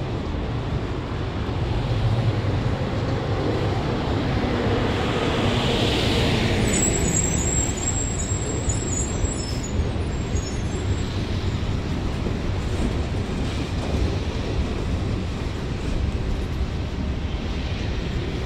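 Freight train cars rolling past close by: a steady rumble of steel wheels on the rails.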